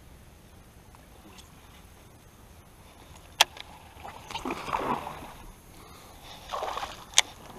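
Water splashing beside a small fishing boat, in two short bursts about halfway through and near the end, with two sharp clicks; the rest is quiet water and air noise.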